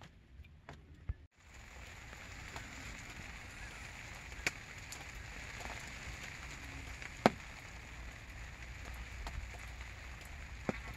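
Light rain falling in a steady soft hiss, with three sharp single ticks spaced a few seconds apart.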